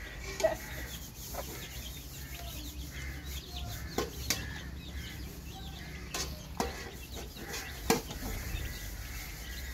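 Chickens clucking in short scattered calls, with sharp clicks and knocks of cooking at intervals; the loudest knock comes about eight seconds in.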